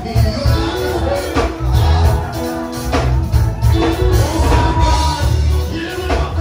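Gospel worship music: a band with heavy bass and a steady drum beat under a sung melody.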